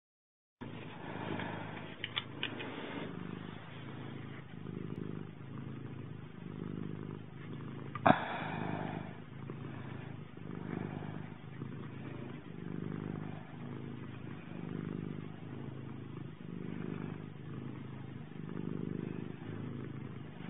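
Domestic cat purring, each purr swelling and fading about every two seconds. Small clicks about two seconds in and one sharp click about eight seconds in.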